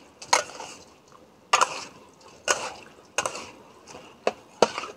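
Metal ladle scraping and knocking against an aluminium wok as raw glutinous rice is stir-fried in a little oil, in about seven irregular strokes.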